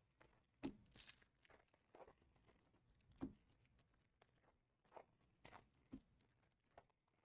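Faint rustling and crinkling of foil trading-card pack wrappers and cards being handled, with a few soft taps spread through and a brighter crinkle about a second in.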